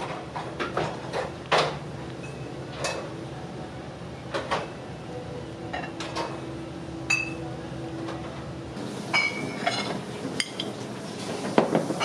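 Dishes and utensils clattering: scattered clinks and knocks over a steady low hum. Near the end, several higher ringing tones join in.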